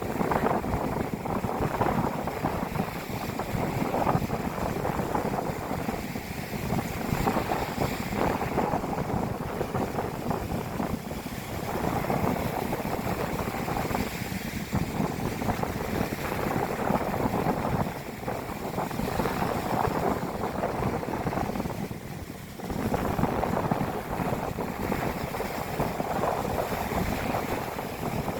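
Strong typhoon wind buffeting the microphone over heavy surf on the beach, a dense gusting rush with a brief lull late on.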